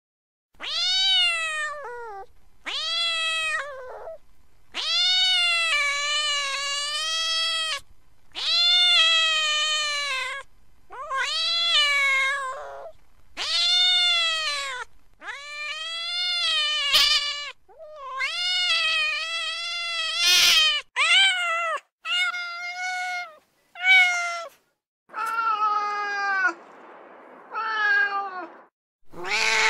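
A domestic cat meowing over and over, about fifteen meows: the first ones long, drawn-out calls with a wavering pitch, the later ones shorter and quicker, with a few lower, hoarser meows near the end.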